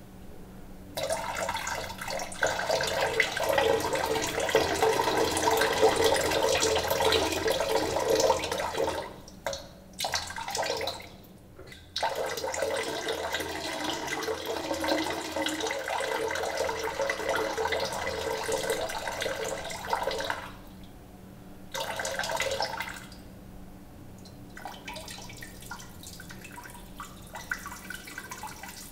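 A stream of water running and splashing in a small room. It stops and starts several times, and near the end only a faint, broken trickle with drips remains.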